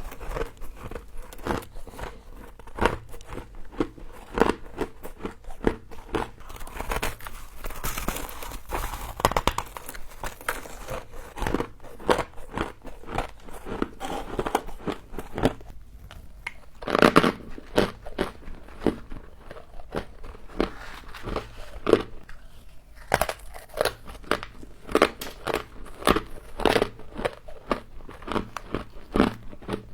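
Frost being bitten and chewed, a fast, irregular run of short crisp crunches, with a louder cluster of crunches about seventeen seconds in.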